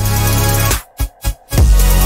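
Electronic background music with a heavy bass line, which cuts out in a few quick stuttering gaps about a second in before coming back in full.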